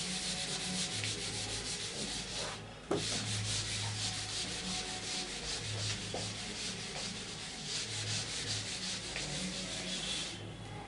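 A whiteboard being wiped clean with a hand-held eraser: a steady scrubbing rub made of repeated back-and-forth strokes. There is a short pause about two and a half seconds in, and the rubbing stops just before the end.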